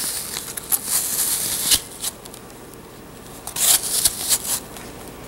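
Metal spoon scraping out the inside of an apple: a run of short scrapes, a lull of about a second and a half in the middle, then more scraping.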